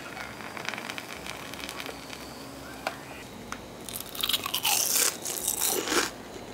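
Beer foam fizzing and crackling in a glass just after pouring. From about four seconds in, a run of loud crunches as crisp breadcrumb-coated fried squid rings are bitten into and chewed.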